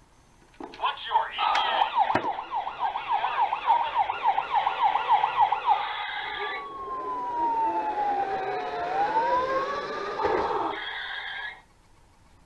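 Electronic siren of a battery-powered toy ambulance, set off by pressing the buttons on its roof, with a few clicks as they are pressed. It starts as a fast yelp of quick rising sweeps, about three or four a second, then changes about halfway through to a slower wail that falls and rises again, and cuts off about a second before the end.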